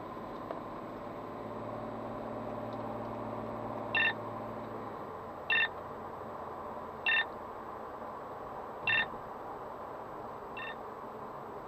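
Beltronics RX65e radar detector beeping an alert: five short beeps about one and a half to two seconds apart, the last one fainter, warning of radar from a Škoda Octavia III travelling in the same direction. Car engine and road noise run underneath in the cabin.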